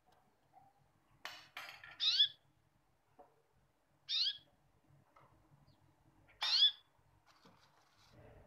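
An animal calling: three short, high-pitched calls that fall in pitch, about two seconds apart. Just before the first call come two sharp taps, the wire-mesh sieve knocked while cocoa is sifted, over a faint low hum.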